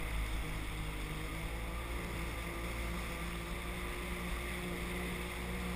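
Sea-Doo personal watercraft engine running at a steady pitch, with water splashing along the hull.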